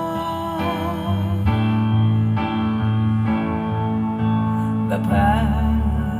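Music played back over Jennings Research Contrara Pedestal MK1 loudspeakers: held notes over a steady bass line, with a wavering melody line about a second in and again near the end.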